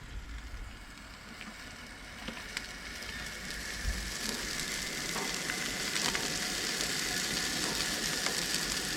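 Food frying in a pan, a steady sizzle that grows louder from about three seconds in, with a few light clicks.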